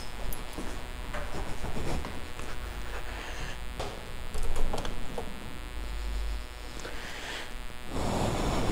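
Footsteps and small clicks and knocks while climbing stairs, then keys jangling and a door lock being turned and the door opened, the loudest clatter about halfway through, over a steady low hum.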